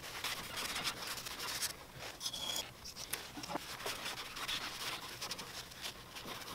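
A rag scrubbing with acetone at baked-on gasket residue on the gasket face of a Yamaha Warrior 350's cylinder head, an irregular rubbing and scratching. A brief high squeak comes about two seconds in.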